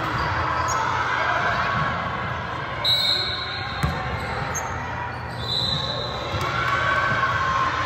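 Basketball being dribbled on a gym court, with voices carrying through the hall and two short high-pitched squeaks, about three and five and a half seconds in.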